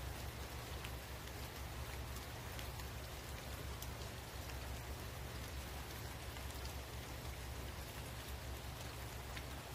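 Steady outdoor background noise: an even hiss over a low rumble, with a few faint scattered ticks.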